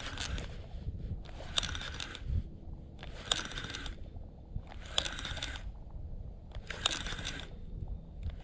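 A spinning reel cranked in five short bursts a bit under two seconds apart, with pauses between, as in a stepped jig retrieve. Each burst is a whirr from the reel's turning gear, on a reel that knocks as it turns, with the line icing up in the cold.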